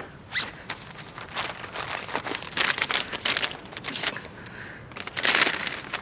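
Rustling and crinkling handling noise: an irregular run of short crackles and scrapes, with a louder rustle about five seconds in.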